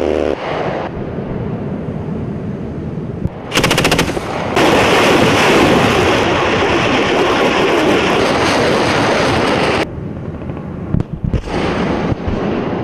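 Automatic weapon fire: a rapid burst of about ten shots a second some three and a half seconds in, followed by about five seconds of loud continuous firing noise that cuts off suddenly.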